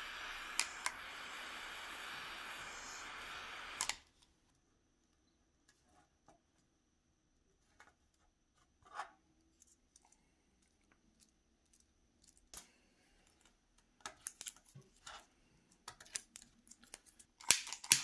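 Small handheld torch hissing steadily while heating double-sided tape pads, shut off with a click about four seconds in. Then faint ticks and taps of handling, and a few sharp clicks near the end as the torch is fired up again.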